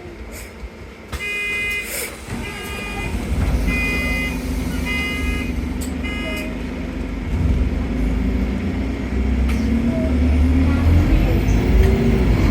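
Bus door warning beeps, five short electronic tones about a second apart, followed by the bus engine's low rumble building up as the bus pulls away, with a rising whine near the end.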